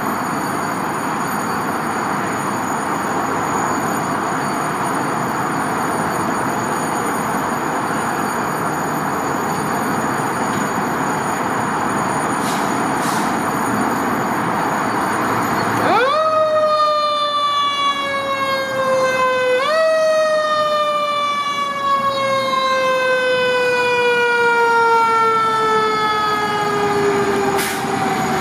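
Fire truck's Federal Signal mechanical siren spun up sharply about halfway through, let to wind down, spun up again a few seconds later, then left to coast down in a long falling wail. Before it there is a steady engine and traffic noise.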